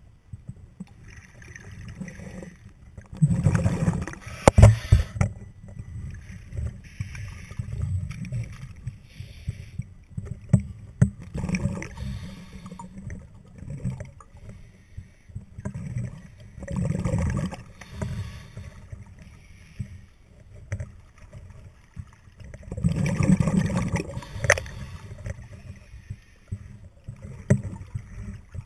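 Scuba diver breathing through a regulator, heard underwater: exhaled bubbles gurgle out in bursts every four to six seconds, with a few sharp knocks in between.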